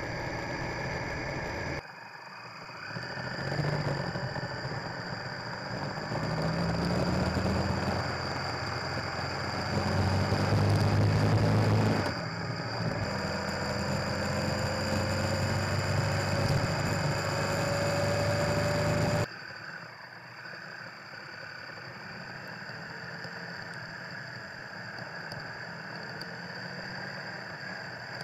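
Triumph Tiger Explorer's three-cylinder engine, recorded by a dash cam on the bike, pulling up through the gears over road noise, with a thin rising whine in the middle part. The sound cuts abruptly between clips a few times and is quieter for the last third.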